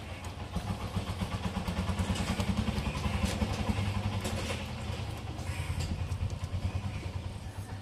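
A motor vehicle's engine hum swells over the first couple of seconds and fades after about five seconds as it passes, with small scattered clicks over it.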